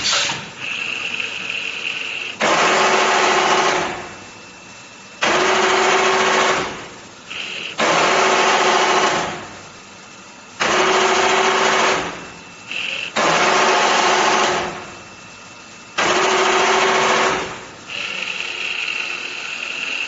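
Pneumatic radiator tank crimping machine cycling: compressed air hisses out of its cylinders in six loud bursts, one every two and a half to three seconds. Each burst starts abruptly and fades out over about a second, and a faint high whine sounds between some of them.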